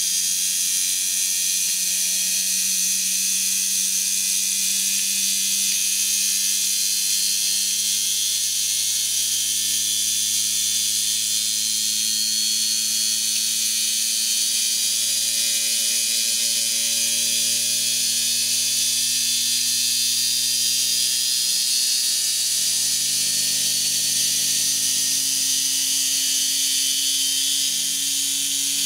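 Pancake electric motor spinning its disc rotor: a steady whir with a strong hiss over it, its low hum slowly rising in pitch as the motor speeds up.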